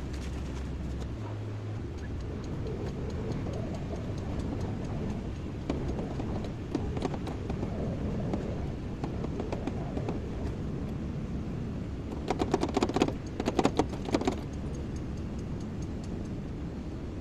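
Kobelco excavator's diesel engine running steadily, with a burst of rapid clattering knocks about three-quarters of the way through.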